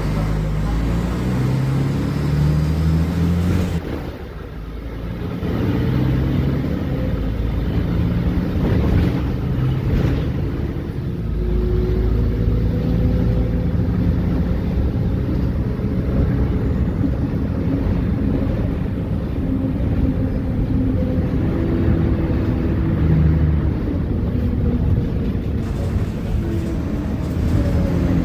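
Diesel engine of a Mercedes-Benz O500UA superarticulated bus running on the move. The engine note rises and falls in pitch, and the level dips briefly about four seconds in.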